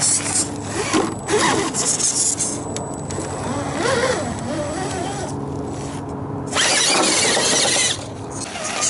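Axial SCX10 radio-controlled rock crawler's electric motor and gear drive whining, rising and falling in pitch with the throttle as it crawls up and over a boulder. Near the end there is a loud rushing noise for about a second.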